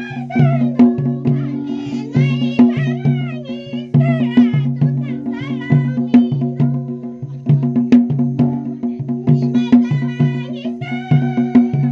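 Women singing a Ladakhi folk song in phrases over a steady percussion beat of about two beats a second.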